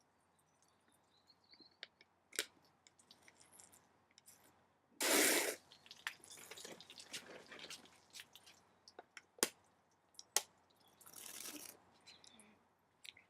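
Wet slurping, splashing and dripping of fizzy soda being drunk and spilled from a punctured can in a failed shotgun attempt. There are two short loud rushing spurts, one about five seconds in and a weaker one near eleven seconds, and a few sharp clicks.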